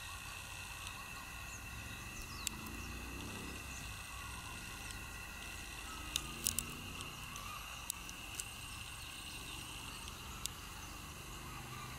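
Outdoor ambience: a steady high-pitched hum over a faint low rumble, broken by about seven short, sharp clicks scattered through, three of them close together near the middle.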